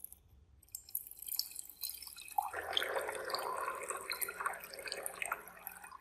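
Water poured in a thin stream into a glass beaker, first a light trickle, then a fuller splashing pour from about two and a half seconds in as the beaker fills. The pour stops near the end.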